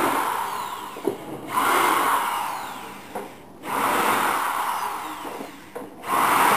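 Cordless drill/driver with a 10 mm socket spinning out bolts in repeated runs of one to two seconds each, about four in all, with short pauses and a click or two between them.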